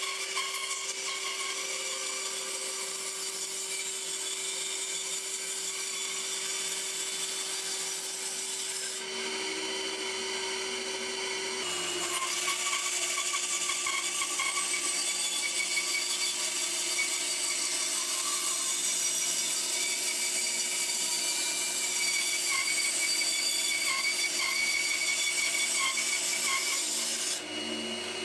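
Bandsaw running and cutting through a glued-up oak block, trimming a mallet head flush. A steady motor hum sits under the noise of the blade in the wood. It gets louder about twelve seconds in and cuts off suddenly near the end.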